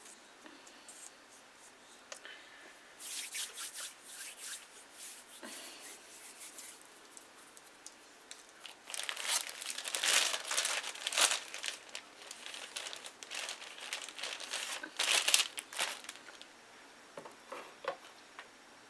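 Plastic bag crinkling and rustling in uneven bursts as it is handled. It starts a few seconds in, is loudest through the middle, and dies away near the end.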